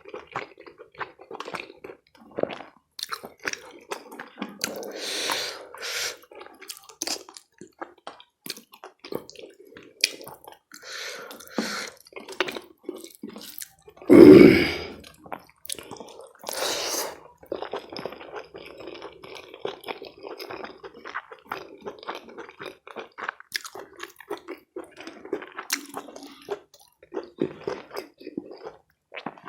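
Close-miked chewing and wet mouth sounds of someone eating rice and curry, with irregular smacks and soft crunches. One louder, fuller burst of sound comes about halfway through, and a shorter one a couple of seconds later.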